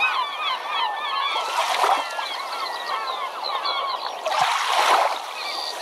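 Many birds calling over one another in a dense chatter of short rising and falling calls. Two brief rushing noises surge up, around a second and a half in and again past four seconds, the second starting with a low thump.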